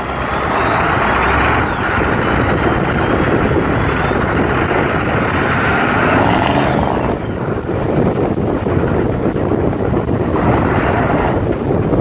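Turbo whistle from the Borg Warner S257 SX-E stage-one turbocharger on a 7.3 IDI V8 diesel pulling under acceleration, heard from inside the cab over the engine and road noise. The high whistle climbs steadily in pitch for about six seconds, then falls for about four, with a short rise again near the end.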